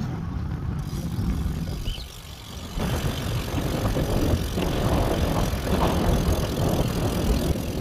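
Wind rushing over the microphone of a moving road bicycle, a steady noise heaviest in the low end. It drops for a moment about two seconds in, then comes back louder and hissier.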